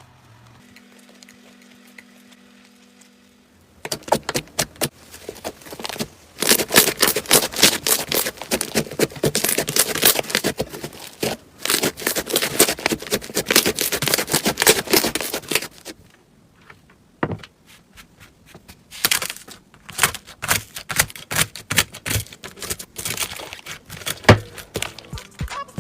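Slime being worked by hand, giving a dense run of rapid clicks and snaps starting about four seconds in, thinning to scattered clicks in the last third.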